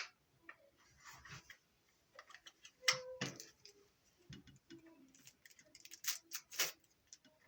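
Scattered light clicks and knocks from handling a Ridgid R8647B cordless reciprocating saw, with the sharpest clicks about three seconds in and twice just after six seconds.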